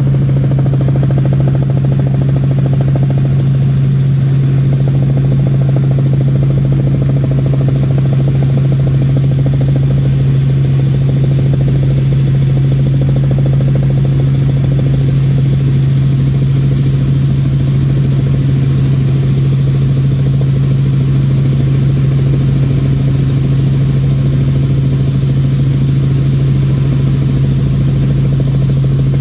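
Helicopter in steady flight: a loud, steady drone of engine and rotor, with one strong low hum that does not change.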